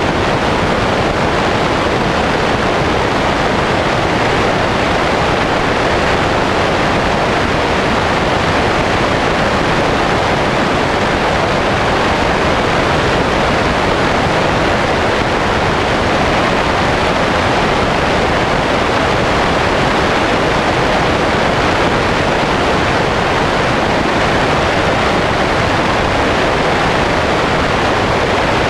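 Steady, loud rushing of air over a camera mounted outside a Sonex light aircraft in flight, with no change through the stretch.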